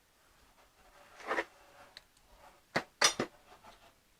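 Metal tools and hardware being handled: a brief scraping shuffle about a second in, then a few sharp metallic clinks near the end.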